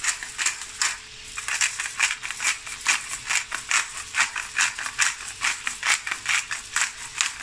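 Hand pepper mill being twisted to grind black pepper: a quick, even run of gritty clicks, about four or five a second, with a brief pause about a second in.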